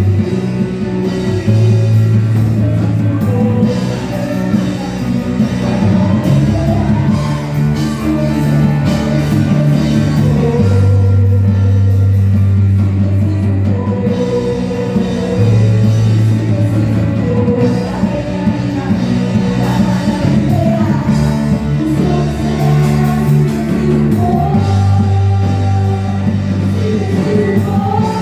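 Live band playing a rock-style worship song, with electric guitar, keyboard, bass guitar and drums, and singing over it; the bass holds long notes that change every few seconds.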